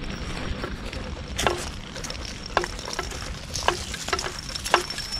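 Walking footsteps on a leaf-strewn asphalt path, a sharp crackling tap roughly every half second to second, over a low rumble of wind and handling on the microphone. A faint steady high whine runs underneath.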